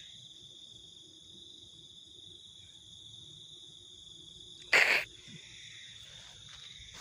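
Insects trilling steadily in a continuous high-pitched tone. About five seconds in there is one loud, short, sharp sound.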